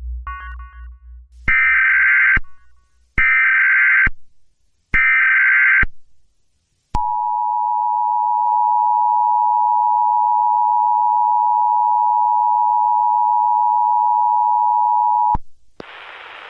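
Emergency Alert System tones: three short bursts of digital SAME header data, about a second apart, then the two-tone EAS attention signal held steady for about eight seconds before it cuts off abruptly. Radio hiss follows near the end.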